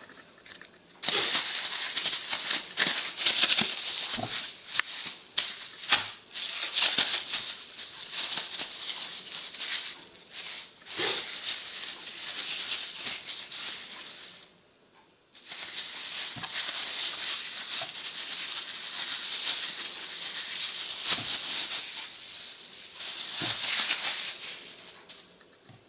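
Thin plastic bag crinkling and rustling as a ball of pizza dough is worked out of it. It comes in two long stretches with a short pause about halfway through.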